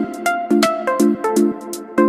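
Background music with a steady beat and short repeated chords and notes.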